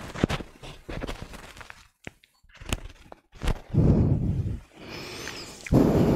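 Scattered light taps and knocks, with two heavier dull thuds, one about four seconds in and one just before the end.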